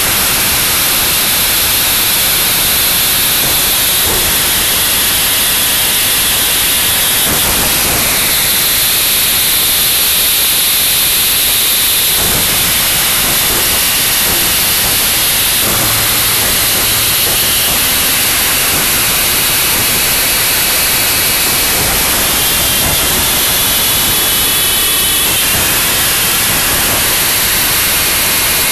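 Harsh noise wall: a loud, dense, unchanging mass of distorted static, with faint high whines that drift and waver above it.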